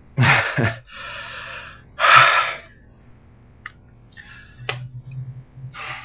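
A person's loud breathy gasps and exhalations, three in the first two and a half seconds, then a few faint clicks and another breath near the end.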